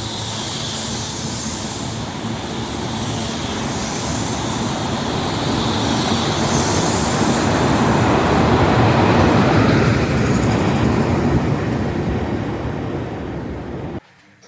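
A train running through the station, growing louder to a peak about nine seconds in and then easing off, before the sound cuts off abruptly near the end.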